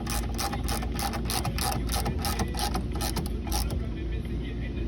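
Rapid ratcheting clicks, about five a second, that stop about three and a half seconds in, over a steady low hum.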